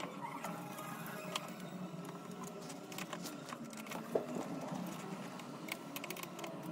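Scattered small metal clicks and taps as a steel compound table is set on a mini lathe's carriage and an Allen screw is turned with a hex key, with one sharper knock about four seconds in, over a steady low hum.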